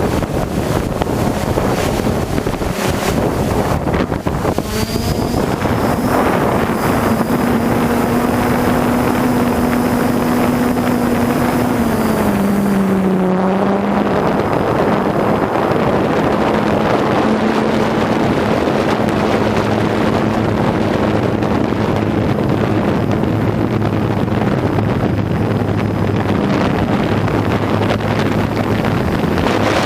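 Wind buffeting the microphone over the steady hum of a hexacopter's motors and propellers. The hum rises in pitch about five seconds in, holds, then dips and settles slightly lower around the middle.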